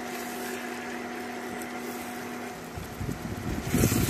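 Induction cooktop's cooling fan running with a steady hum and whine. About three seconds in, louder irregular knocking and shuffling sounds start as a silicone spatula stirs chicken pieces in a nonstick pan.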